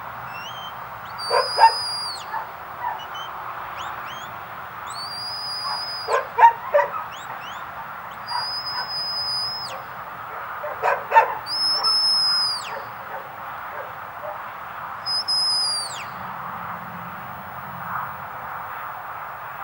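Shepherd's whistle commands to a working sheepdog: about five high, held whistle notes, each about a second long, several ending in a falling slide, with short quick chirps between them. Three clusters of sharp clicks, about a second and a half in, near the middle and about eleven seconds in, are the loudest sounds.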